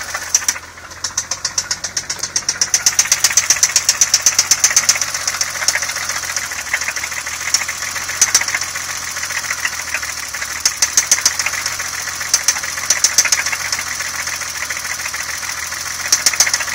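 BMW M20B25 2.5-litre straight-six idling with a rapid, regular knock that grows louder and fainter in turns. The owner suspects it comes from a piston and fears the bottom end is worn out, having found the valves fairly quiet.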